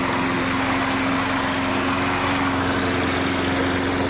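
Petrol walk-behind lawn mower engine running steadily at an even pitch, close by.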